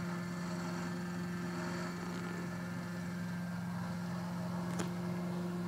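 Steady low electrical hum with faint hiss, and a faint click near the end.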